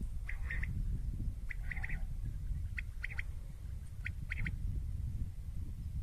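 Common quail calling in several short bursts of quick, sharp notes, some in twos and threes, over a steady low wind rumble on the microphone.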